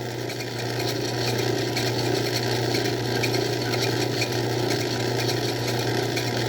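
Craftsman 109 bench lathe running steadily with the drill backed out of the cut: a constant motor hum under a busy mechanical rattle.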